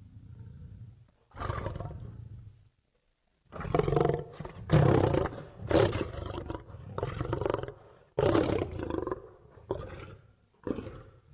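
Lion-like roars and growls for a griffon creature sound effect: a string of about ten short, rough calls with brief gaps between them, loudest in the middle.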